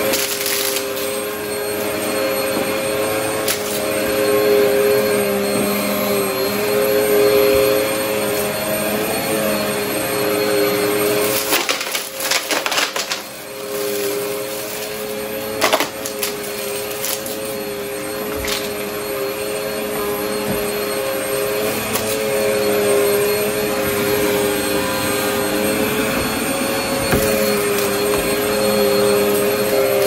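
Vacmaster upright bagless vacuum cleaner running steadily over carpet, its motor holding a steady hum. Around the middle, debris crackles and clicks as it is sucked up.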